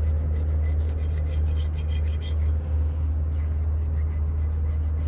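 Razor blade scraping old silicone sealant off the oil-cooler mounting surface of a Cummins ISB 6.7 engine in quick, repeated short strokes, over a steady low hum.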